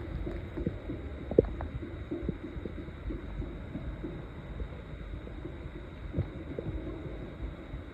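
Empty human stomach growling with hunger after more than 20 hours without food: a run of small gurgles and pops over a low rumble, with one sharper pop about a second and a half in.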